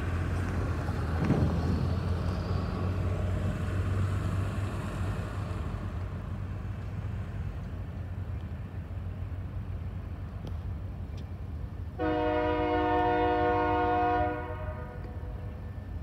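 Nebraska Central EMD SD40-2 diesel locomotive pulling away, its low engine drone slowly fading, with a single thump about a second in. About twelve seconds in its air horn sounds one chord blast of about two seconds.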